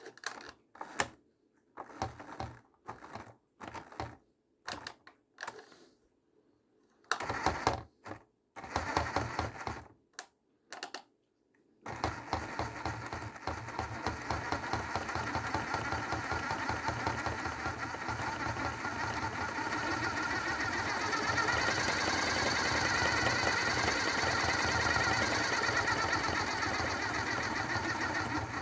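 Hoover washing machine on a rinse and spin cycle, with an RC car inside the drum. For about twelve seconds the motor turns in short stop-start bursts. Then it runs continuously with a clattering rattle, slowly getting louder as the spin builds.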